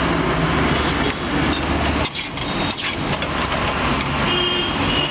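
Street traffic noise with a motor vehicle engine idling close by, running steadily over a constant hiss.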